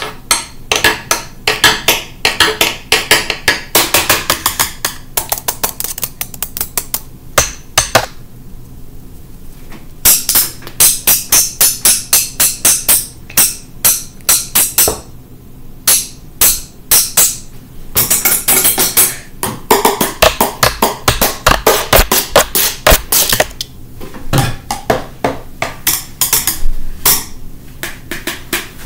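Wooden chopsticks drumming on assorted household objects: quick runs of sharp taps, some fast enough to make rolls, some objects ringing briefly after the hits, with a few short pauses between runs.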